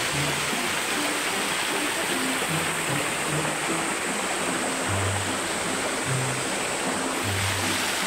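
Stream water rushing steadily over rocks and a small waterfall, with background music of low, short notes playing over it.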